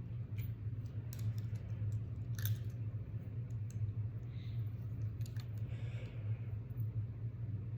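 Scattered small clicks and light rustles of a pocket watch and its clip being handled, over a steady low background hum.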